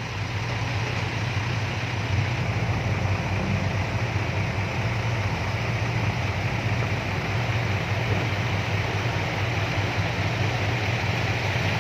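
Six-wheel dump truck's diesel engine running steadily at a low, even speed.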